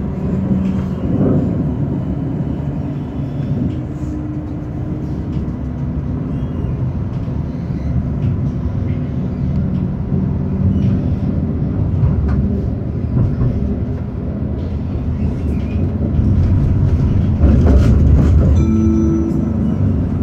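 Tram running along its rails, heard from on board: a steady low rumble of wheels on track with a faint motor hum. It grows louder near the end, with a few clicks.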